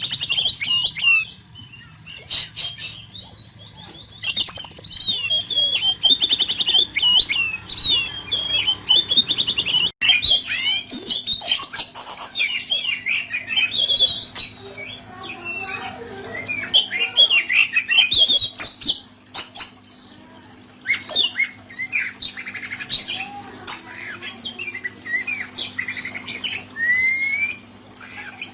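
Oriental magpie-robin (kacer) singing a harsh, varied song of rapid chirps, whistles and squawks, packed with mimicked phrases ("isian kasar"). It sings continuously in fast, changing phrases.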